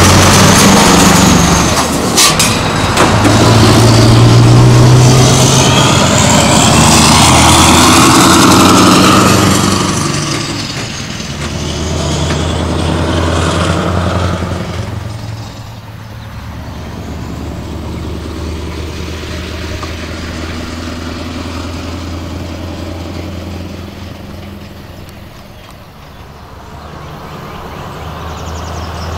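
Scania R500 truck's V8 diesel, breathing through upright straight exhaust stacks, passes close by loudly. It then drives away, fading over about ten seconds into a lower, steady distant engine sound.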